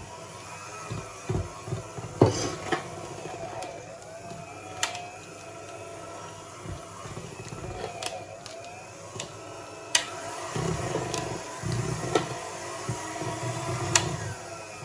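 Electric hand mixer running as its beaters whip banana cake batter in a bowl, with a few sharp knocks as the beaters hit the bowl. The motor's hum grows fuller about two-thirds of the way through.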